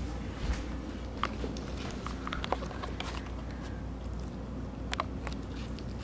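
Corgi puppy eating watermelon from a plate: scattered small wet clicks and smacks of chewing and licking, a few sharper ticks about half a second, a second and a quarter, two and a half seconds and five seconds in.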